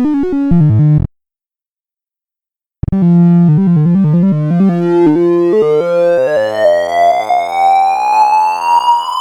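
Electronic tones from a sorting-algorithm sonification, each beep's pitch set by the value being compared. Rapid stepped beeps cut off about a second in, and after nearly two seconds of silence a new run starts. In the second half one tone rises steadily in pitch.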